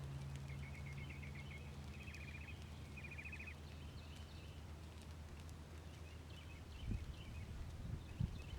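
Low, steady engine hum, with small birds chirping and giving quick trills over it. A few soft thumps come near the end.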